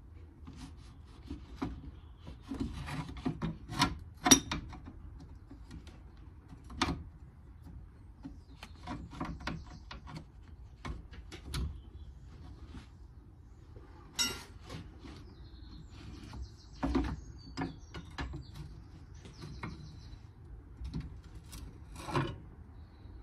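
Hand tools being worked on the van's drive shaft: irregular clicks, knocks and scraping, with the sharpest knock about four seconds in.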